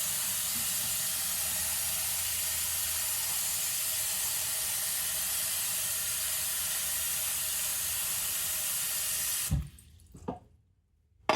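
Tap water running steadily into a pan of lemongrass to fill it for tea. The flow cuts off sharply near the end, followed by two short knocks.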